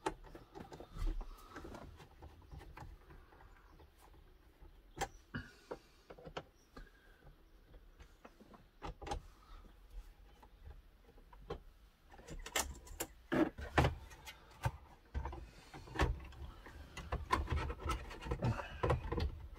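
Plastic dashboard trim in a VW Crafter cab being handled and pressed into place: scattered clicks and knocks, busier in the second half.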